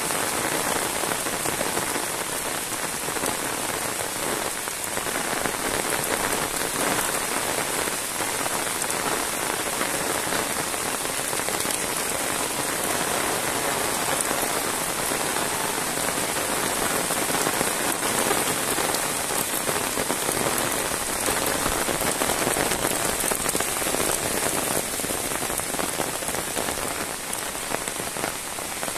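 Heavy rain falling steadily on a wet asphalt road and dense leafy vegetation, a constant even hiss of many drops.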